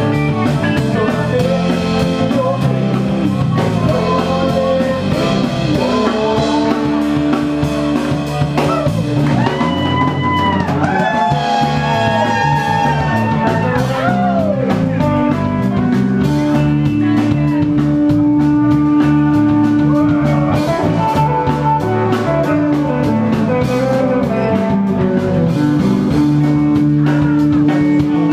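Live rock band playing an instrumental jam: guitars, bass guitar and drum kit, with a lead guitar line whose notes bend and glide in pitch in the middle.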